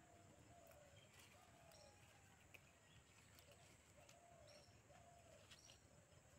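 Faint, distant dove cooing: several short, low, slightly falling coos in small groups. A small bird gives a few brief high chirps, and there are a few faint clicks.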